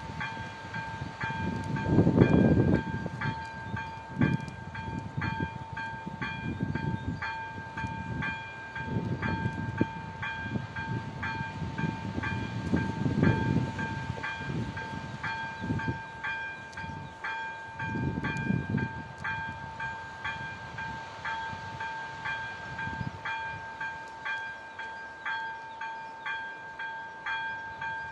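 Level-crossing warning bell ringing about twice a second over a steady two-note tone, sounding the warning that a train is approaching. Bursts of low rumble come and go underneath, loudest about two seconds in.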